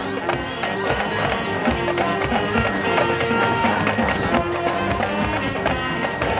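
High school marching band playing: brass and woodwinds holding notes over drumline percussion, with regular cymbal and drum strikes.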